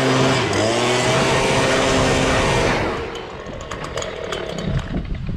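Stihl handheld two-stroke leaf blower running at high throttle, blowing out the underside of an upturned mower deck. The engine dips briefly about half a second in and comes back up, then drops away nearly three seconds in, leaving light knocks and rustling.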